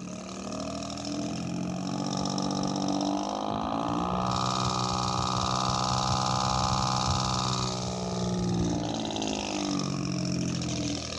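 Desk fan running on high with a finger pressed against it, giving a buzzing, engine-like drone that imitates a two-stroke Detroit Diesel. The pitch rises over the first few seconds as the finger eases off and the fan speeds up, holds steady, then sinks back down near the end.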